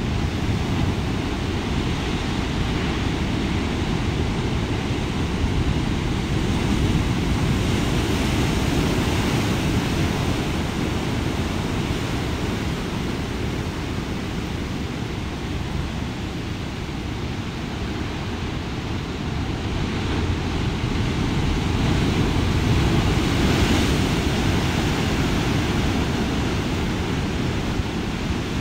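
Heavy storm surf breaking over rocks and sea stacks: a continuous wash of surf, heaviest in the low end, swelling louder twice as larger sets come in, about a quarter of the way in and again past the middle.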